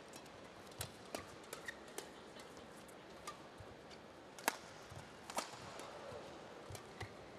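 Badminton rackets striking a shuttlecock in a rally: sharp, short cracks, spaced about a second apart later on, the loudest about halfway through, with lighter clicks of footwork on the court between them.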